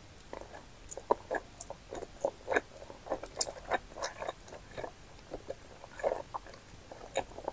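Close-miked mouth sounds of chewy wide Chinese glass noodles coated in buldak sauce being bitten and chewed. The wet smacks and sticky clicks come irregularly, several a second.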